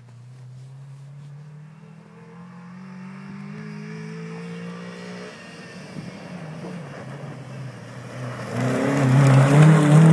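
Rally car approaching on a gravel stage, its engine note rising steadily as it accelerates, easing briefly about halfway. It grows loud near the end as it passes close, with tyre and gravel noise over the engine.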